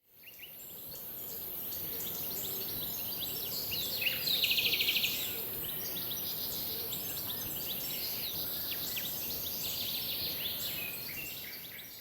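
Birds chirping and calling over a steady high hiss, with a fast trill about four seconds in standing out as the loudest sound. The sound fades in at the start and fades out near the end.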